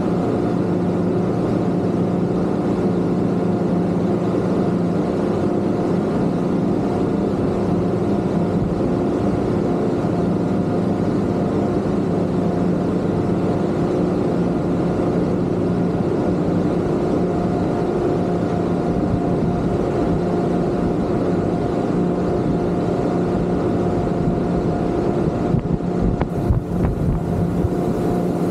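Twin Yamaha 250 outboard motors on a Kingfisher 3025 GFX running steadily under way: an even engine drone over a rushing hiss. A few uneven low thumps come near the end.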